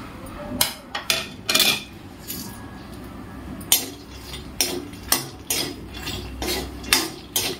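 Makhana, cashews and almonds tipped from a plate into an aluminium kadhai, then a metal ladle clinking and scraping against the pan as they are stirred and roasted. Irregular sharp knocks come every half second or so.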